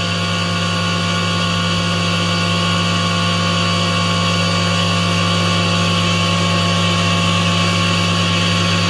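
Home-made table saw built on a thickness planer, running without cutting: the blade and motor keep up a steady, even hum with a high whine.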